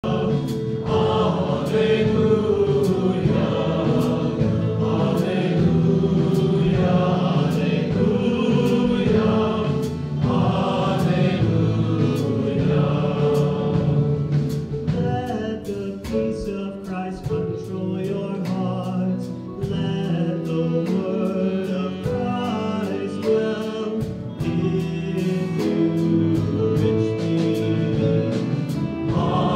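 Church choir singing a hymn with instrumental accompaniment and a steady beat.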